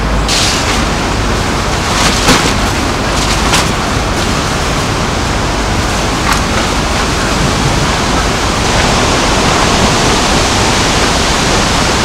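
Steady rush of water, with a few brief sharp ticks on top.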